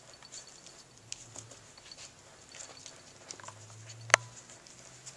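Small pump parts being handled by a gloved hand on a workbench: scattered soft clicks and rustles, with one sharp click about four seconds in.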